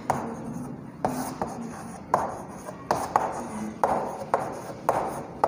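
Chalk writing on a chalkboard: an irregular string of sharp taps and short scratches as the letters are written.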